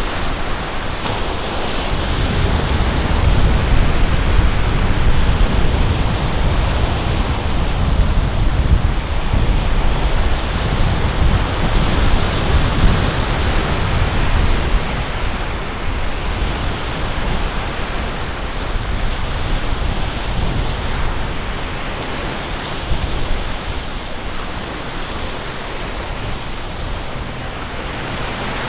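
Wind buffeting the microphone with a deep rumble, over the steady wash of choppy lake waves. The gusts are strongest in the first half and ease off later.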